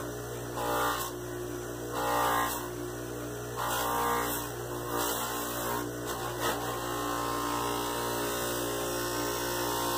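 Small electric bench buffer running with a steady motor hum, a leather knife sheath held lightly against its buffing wheel charged with brown tripoli compound. The sound swells briefly several times as the leather meets the spinning wheel.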